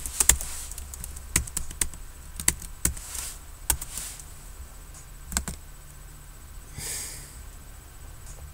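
Typing on a computer keyboard: irregular key clicks, a few at a time with short pauses between.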